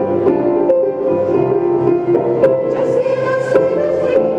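Women's choir singing in several-part harmony, holding chords that change every second or so.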